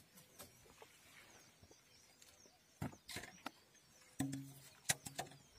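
Scattered light rustles and knocks from hands handling dry grass and fish on a styrofoam float, with a short low steady hum about four seconds in.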